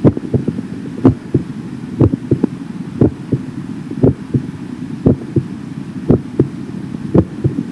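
Normal human heartbeat, about one beat a second. Each beat is a pair of dull thumps in quick succession, S1 then S2 ('lub-dub'): S1 is the mitral and tricuspid valves closing, S2 the aortic and pulmonary valves closing. A steady low rumble runs underneath.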